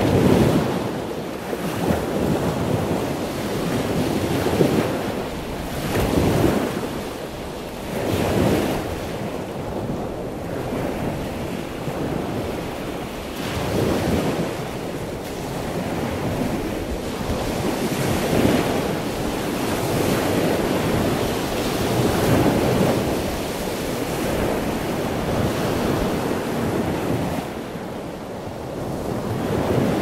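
Water washing continuously, swelling and easing in surges every few seconds.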